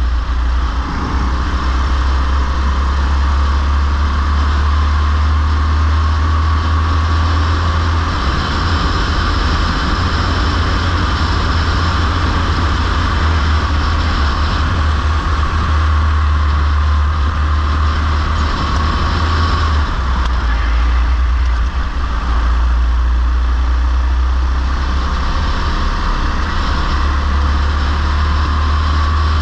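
Racing go-kart's engine running continuously at speed, heard onboard, its note wavering slightly as the kart goes through the corners.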